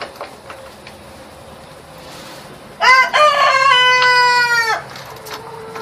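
A rooster crows once, a single call about two seconds long starting about three seconds in, the loudest thing here. Faint small clicks come before it.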